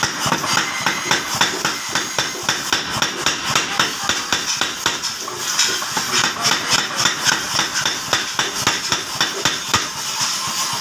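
50 kg power hammer pounding a red-hot steel blank on its anvil: a fast, even run of sharp metal blows, about three a second.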